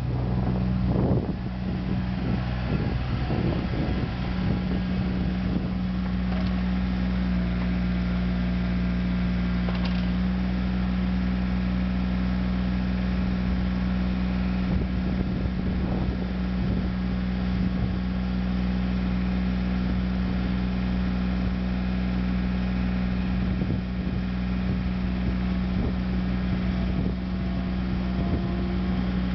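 1999 Caterpillar mini excavator's diesel engine running at a steady speed, with a few knocks and clatter in the first few seconds.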